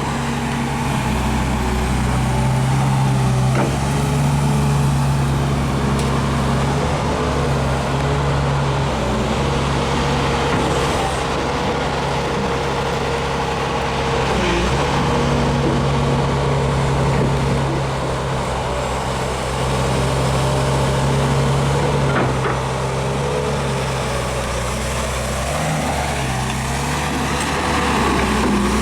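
Diesel engine of a Hyundai R500LC-7 crawler excavator running steadily at an even speed.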